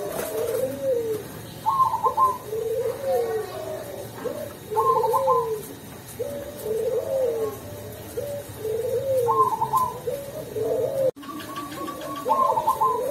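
Perkutut Cemani (zebra dove) singing its cooing song in a mellow voice. It repeats a phrase about every three to four seconds: a short high trilled note, then several low rolling coos.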